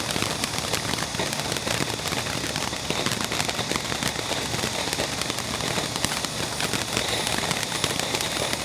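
Consumer fireworks crackling steadily: a dense, continuous run of small sharp pops and snaps.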